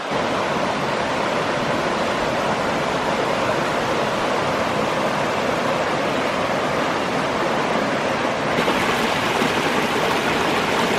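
Waterfall rushing steadily and heavily, running high after wet weather rather than its usual trickle.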